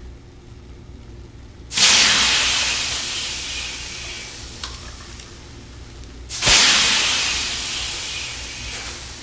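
Steam hissing into a sauna in two sudden bursts about five seconds apart, each loud at the start and fading away over a few seconds, over a low steady hum.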